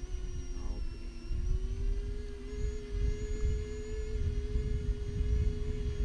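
Convergence VTOL RC plane flying in airplane mode: the steady whine of its electric motors and propellers, rising a little in pitch after about a second and easing back near the end, over a low rumble of wind on the microphone.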